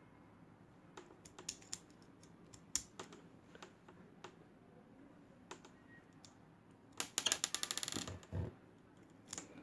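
Small plastic clicks of BB pellets being pushed one by one into a toy airsoft pistol's magazine, with a quick rattling run of clicks about seven seconds in and a duller knock just after.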